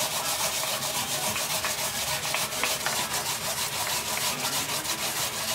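Jinenjo wild yam being grated skin-on against a grater, a steady rasping in quick, even strokes.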